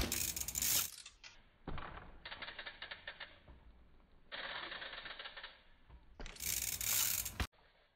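Mountain bike's rear freehub ratchet buzzing with rapid clicks as the bike coasts on dirt, in two stretches, with louder bursts of rushing noise near the start and about six seconds in.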